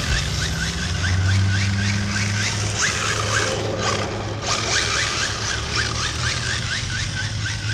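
Radio-controlled car driving on parking-lot asphalt, under a steady low drone and runs of quick, repeated high chirps.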